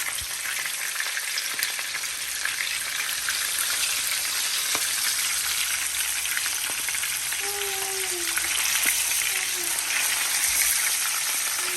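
Seasoned chicken pieces frying in hot oil in a pan, a steady sizzle with a few faint ticks.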